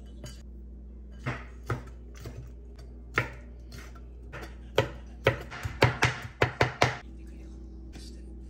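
Sharp knocks, scattered at first, then a fast run of about eight strokes, roughly five a second, a little past the middle, over a steady low hum.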